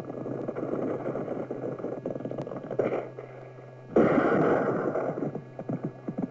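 Horses galloping: a dense, uneven clatter of hoofbeats, dropping quieter just before four seconds in and then coming back suddenly louder.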